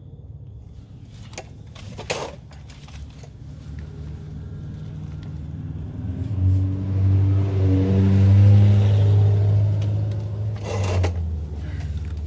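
A motor vehicle passing by: a low engine hum swells for a few seconds and then fades, its pitch sliding as it goes. A few sharp clicks or knocks sound about two seconds in and again near the end.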